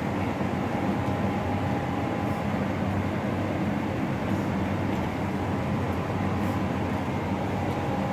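A steady, unchanging low mechanical hum over a haze of background noise, with a faint thin whine above it.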